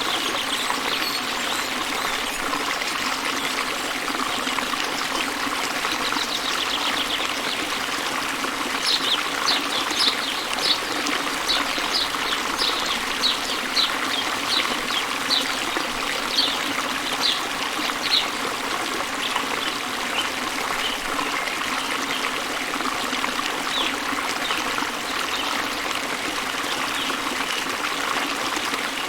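Steady running water of a stream. Through the middle a bird repeats short, high chirps about twice a second for roughly ten seconds.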